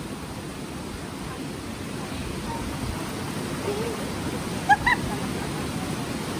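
Steady rush of a swollen river running over rocks and around the legs of people wading in it. About five seconds in, two short high-pitched sounds come close together, the loudest moment.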